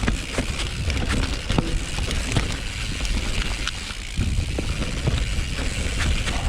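Full-suspension mountain bike rolling down a steep, muddy trail: the tyres rumble over roots and rock, with frequent knocks and rattles from the bike.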